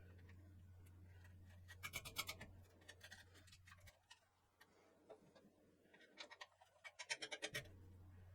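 Two brief runs of rapid small clicks, about two seconds in and again near the end, from monitor mounting bolts and hardware being worked by hand, over a faint low hum.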